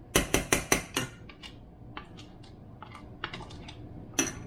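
A spoon knocked rapidly against a pan or container, about five quick sharp knocks, then lighter scattered clicks of stirring and one more sharp knock near the end.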